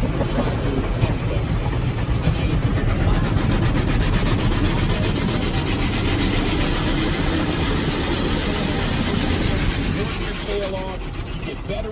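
Automatic car wash working over a car, heard from inside the cabin: a dense, steady rush of water spray and wash brushes rubbing on the body and glass. It eases near the end.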